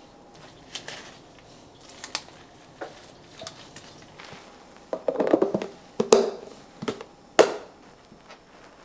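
Kitchen handling sounds around a plastic food storage container: scattered soft clicks and rustles, then a cluster of louder knocks and clatters about five seconds in, ending in a sharp snap.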